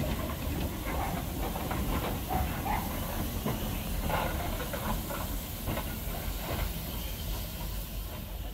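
Robert Stephenson & Hawthorns 0-4-0 saddle-tank steam locomotive passing slowly, hissing steam from around its cylinders, with the rumble of wheels on the rails and irregular knocks from the train.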